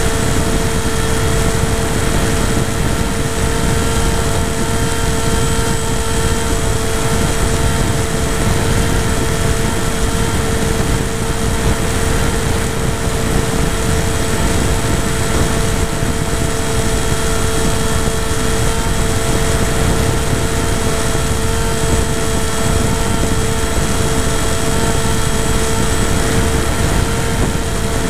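Electric motor and propeller of a radio-controlled FPV aircraft, heard through its onboard camera: a steady whine that holds pitch at constant throttle, over heavy wind rush on the microphone.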